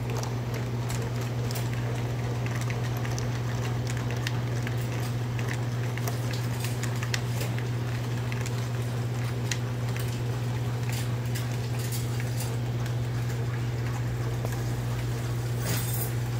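O gauge model train running on tubular three-rail track: a steady low electrical hum with irregular clicking and rattling of the wheels over the rail joints and switches, and a brief louder rattle near the end.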